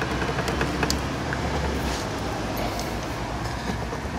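Steady low rumble and hiss of background noise, with a few faint clicks as the outboard's fuel line quick-connect fitting is handled.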